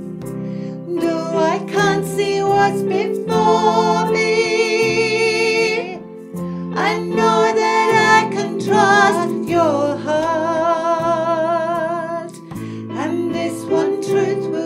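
A woman singing a worship song over piano chords, holding long notes with vibrato.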